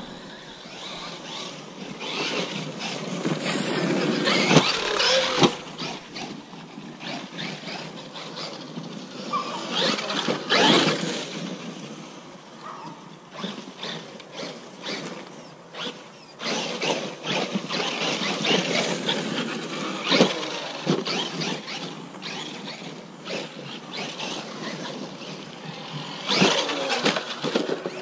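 Traxxas Maxx 4S electric RC monster truck running over dirt and dead leaves: its motor whines in surges as the throttle comes on and off, tyres churn the ground, and there are repeated sharp knocks from landings and impacts.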